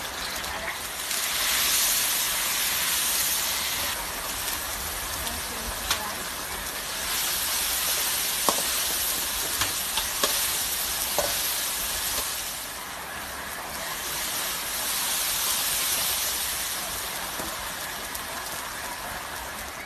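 Hot oil sizzling and hissing in a large iron wok as food is tipped in and stirred, swelling and fading in several long surges, with a few light metal clinks of the ladle against the bowl and wok.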